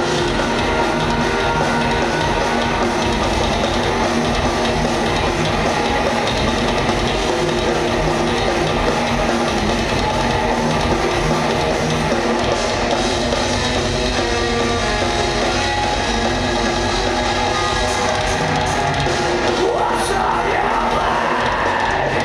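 Live heavy rock band playing: distorted electric guitars, drum kit and keyboards at full volume, heard from the audience in the hall.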